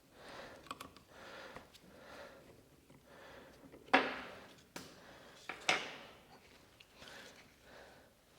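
Faint rhythmic hissing strokes, about one a second, with two sharp metallic clicks about four and five and a half seconds in, as small metal parts of a mini metal lathe are handled.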